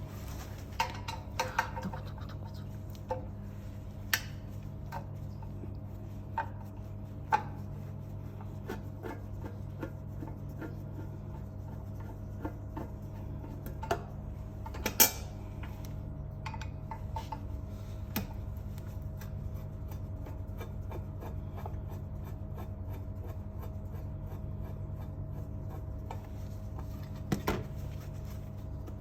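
Metal parts and tools clinking, scraping and knocking now and then while a noodle-making machine's conveyor belt assembly is taken apart by hand, over a steady low hum. The sharpest knock comes about halfway through.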